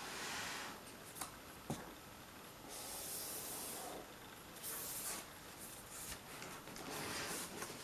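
Cotton-gloved hand rubbing and brushing across a cardboard box in several short strokes, with two light taps or clicks about a second apart early on.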